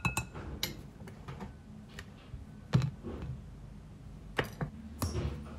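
Kitchen handling noises: a short clink of a fork against a glass mixing bowl at the start, then scattered light clicks and knocks of utensils and bowl being handled, the loudest about halfway.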